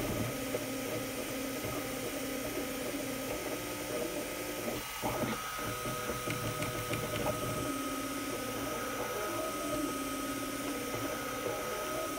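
FDM 3D printer at work: its stepper motors whir in shifting, stepping tones as the print head moves back and forth, over a steady high whine from the fan.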